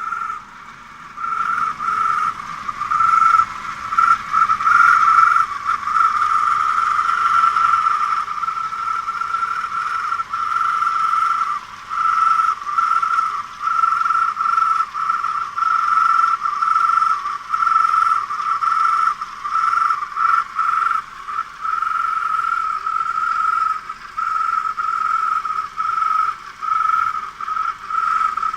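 Suzuki Grand Vitara's drive-belt pulley squealing: a loud, high, single-pitched squeal that drops out briefly about once a second and comes straight back. The owner takes it for a faulty belt tensioner roller or a similar pulley.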